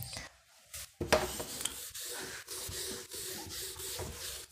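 Scratchy rubbing in quick, uneven strokes, starting about a second in.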